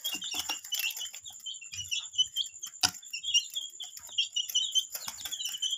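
A group of baby chicks cheeping constantly in short, high peeps while they eat from a hand, with scattered light taps and clicks and one sharper click about three seconds in.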